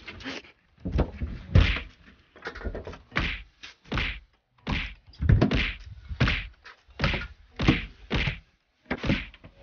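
A knife blade striking freshly caught squid and octopus on a boat deck as they are killed by nerve-severing (shime): a long irregular run of dull whacks, roughly one or two a second.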